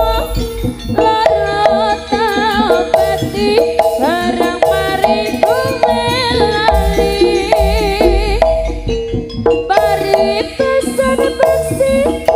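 Jaranan music from a live ensemble: drums and gongs keep a steady beat under a wavering lead melody.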